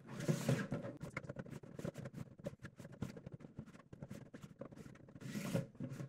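Giant 2x2 Rubik's cube being scrambled by hand: its plastic layers turning with rubbing and scraping, broken by many quick clicks and knocks as the pieces catch and settle.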